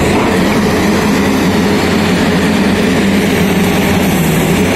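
Rotary boring rig's diesel engine running steadily: a loud, even drone with no breaks or changes in pitch.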